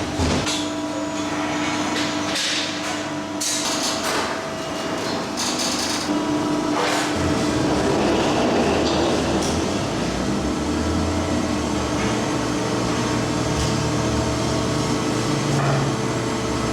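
Sheet-metal shop machinery running with a steady hum, with several sharp metal clanks in the first half and a low rumble joining from about the middle.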